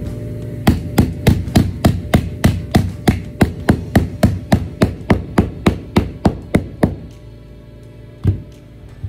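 Claw hammer driving nails through a metal J-bar carpet trim: a quick, even run of about two dozen blows, three or four a second, that stops about seven seconds in, with one more blow near the end. Background music plays underneath.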